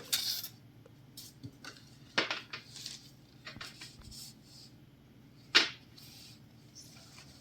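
Hands handling the packaging of a newly received bag: scattered light clicks and brief rustles, with one sharp click about five and a half seconds in.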